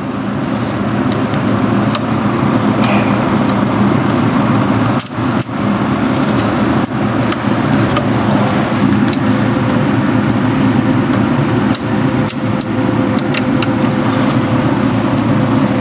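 A steady mechanical hum with a constant rushing noise, and a few faint clicks and knocks from hands working a tight rubber fuel line on a small-engine carburetor.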